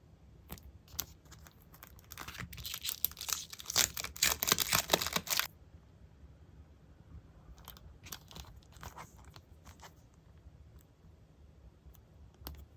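Crinkling and crackling of paper-craft materials being handled, densest and loudest from about two to five and a half seconds in, then a few softer rustles and a single click near the end.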